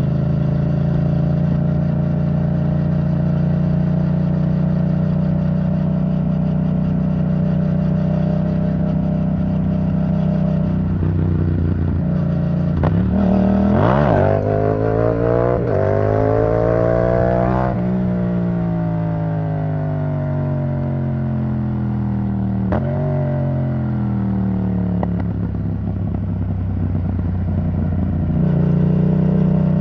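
Yamaha MT-07's parallel-twin engine through an Arrow Thunder titanium exhaust, heard while riding. It holds a steady cruising note, then about 13 seconds in revs up in a rising pull that peaks a few seconds later and winds down over several seconds as the bike slows, with a short click along the way. It settles again and picks up near the end.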